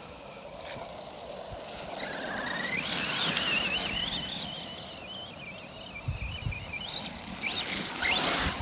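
Arrma Big Rock BLX V3 RC truck's brushless motor and steel spur gear whining under throttle. The whine rises in pitch about two seconds in, wavers as the truck is driven, then climbs sharply again near the end, with a few low thumps as it goes over the ground.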